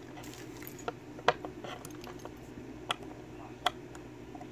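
Sparse, sharp metallic clicks, about five in four seconds, from lock picks and a brass Yale six-pin cylinder being handled and worked in the keyway.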